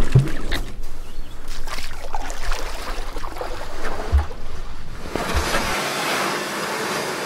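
Swimmers underwater, heard through an underwater camera: muffled water sounds with small crackling bubble clicks and a couple of low thumps. About five seconds in, these give way to a steady rushing hiss of water.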